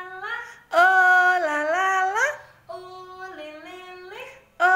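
A woman singing a short wordless phrase: held notes that step down and back up, ending in an upward slide. She repeats it several times, alternating soft and loud.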